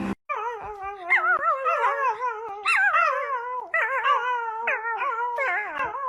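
A dog howling in a string of drawn-out, wavering calls whose pitch wobbles up and down, breaking off and starting again several times.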